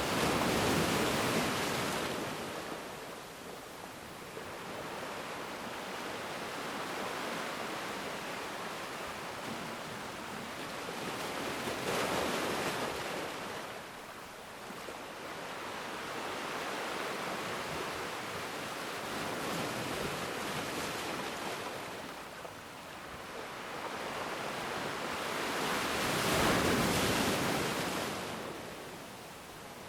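Ocean surf breaking and washing up a black sand beach. The waves swell to loud rushes near the start, about twelve seconds in and again near the end, with a steady hiss of water between.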